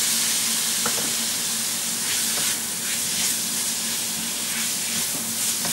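Onions, spices and freshly added chopped tomato sizzling steadily in oil in a stainless steel frying pan, stirred with a wooden spatula.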